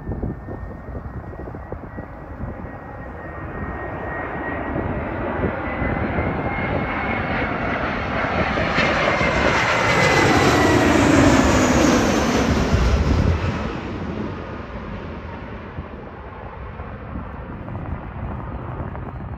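Airbus A320-200 jet airliner on final approach with gear down, flying overhead: the engines' whine and rush grow louder to a peak about ten to twelve seconds in. The pitch falls as it passes, and then the sound fades away.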